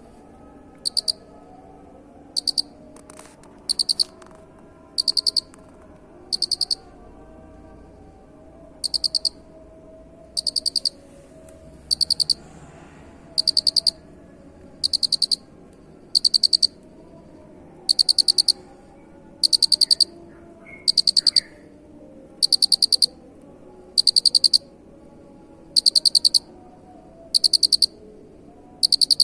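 A cricket calling in regular chirps, each a short rapid train of pulses, repeating about every second and a half over a faint steady background hum.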